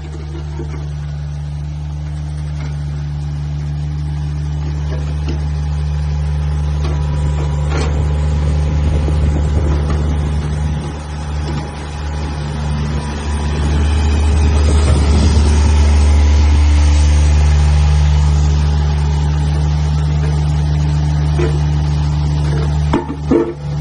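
Mini excavator's diesel engine running, growing louder for a few seconds about midway as it works.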